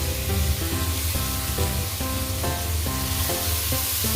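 Garlic and chopped tomatoes sautéing in hot oil in a pan, sizzling steadily. Background music with sustained notes plays under it.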